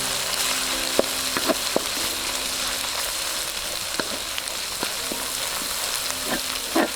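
Onion and spice paste sizzling in hot oil, with a steady frying hiss and a spoon stirring, knocking on the pan a few times.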